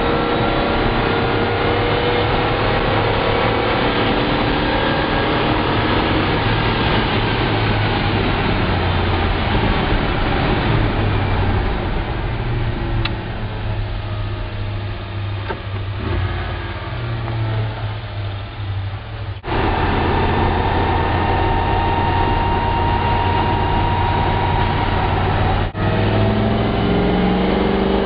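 Chevy Ram Jet 350 small-block V8 with a custom exhaust, heard from inside the truck's cab while driving, with road noise. It pulls with rising pitch under acceleration at the start and again near the end, and eases off in the middle. The sound breaks off abruptly twice.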